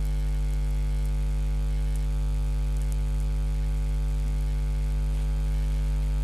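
Steady low electrical hum with buzzing overtones, unchanging throughout, with a few faint ticks.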